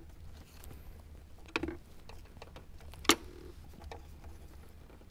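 A hand screwdriver working screws into a head unit's metal mounting bracket: faint handling noise with two sharp clicks, about a second and a half and three seconds in.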